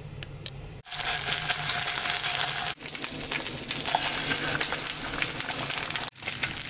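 Eggs and garlic paste frying in hot oil in a nonstick pan: a dense sizzle with rapid crackling pops that starts suddenly about a second in and drops out for an instant twice.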